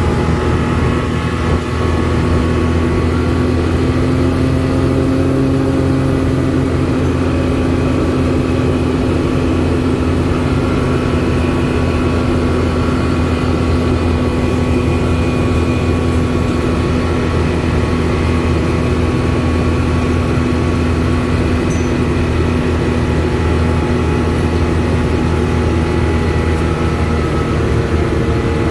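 Car engine and tyre noise inside the cabin while driving at a steady speed: a constant drone with a steady hum.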